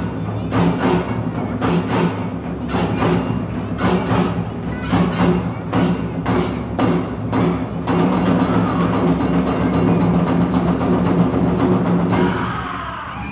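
Awa odori festival music: a taiko drum and a kane hand gong beating a steady march rhythm, quickening into a rapid run of strikes about eight seconds in, then stopping near the end as the piece finishes.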